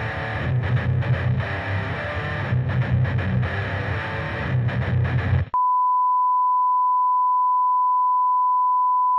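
Distorted electric guitar music that cuts off abruptly about five and a half seconds in, followed by a steady, unchanging beep: the test tone that goes with TV colour bars.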